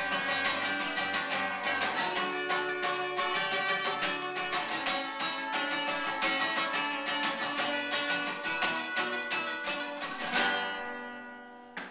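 Two acoustic guitars, a nylon-string classical guitar and a steel-string cutaway acoustic, played together in fast, driving strumming and picking. About ten and a half seconds in they stop on a final chord that rings out and fades.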